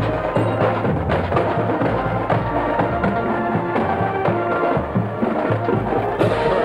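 High school marching band playing while marching: brass holding chords over a drumline, with bass drum strokes.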